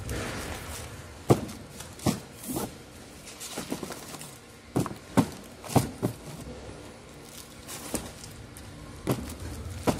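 Shrink-wrapped multipacks of plastic drink bottles being set down on a pallet, giving about ten irregular knocks and thuds with plastic crinkle.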